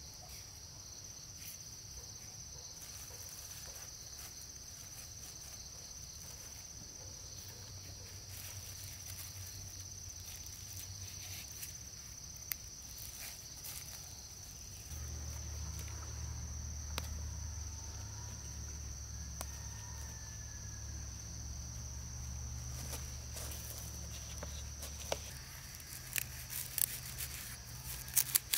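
Steady high-pitched insect buzz, with scattered soft clicks and rustles of plastic mulch film being handled, crinkling more densely near the end. A low hum comes in about halfway through.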